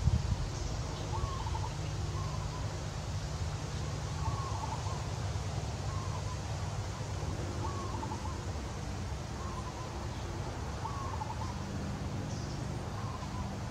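A bird calling over and over, a short call repeated about every second and a half, over a steady low rumble.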